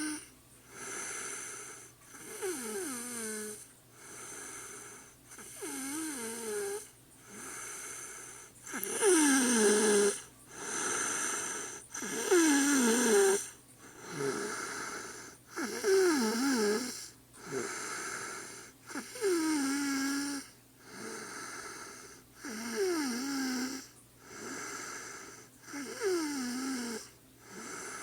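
A woman snoring in a steady rhythm, about one snore every two seconds. Each snore is a noisy breath with a buzzing tone that slides down in pitch; a few are louder than the rest.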